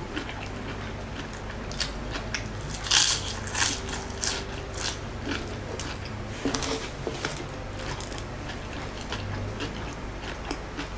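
Close-up crunching and chewing of crispy fried lumpia shanghai (spring rolls), with a cluster of louder crunches about three seconds in and another around six and a half seconds.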